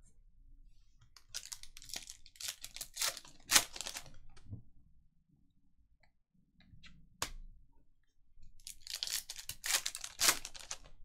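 Foil wrapper of a baseball card pack being torn open and crinkled, in two bursts of crackling: one starting about a second in and lasting a few seconds, and another near the end. A single sharp click falls between them.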